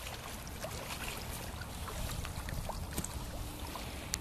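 Riverside ambience: a steady low rumble over light water sounds, with a few small clicks and a brief faint hum about three seconds in.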